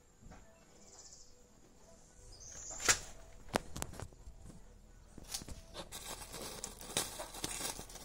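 Handling noises at the car's wheel: a few sharp knocks and clicks, the loudest about three seconds in after a short swish, then a crinkly rustling of the plastic masking sheet during the last two seconds.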